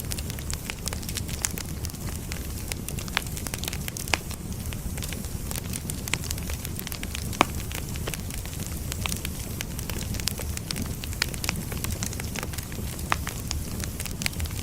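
Firewood burning: a steady low rumble of flame with irregular sharp crackles and pops, one louder pop about halfway through.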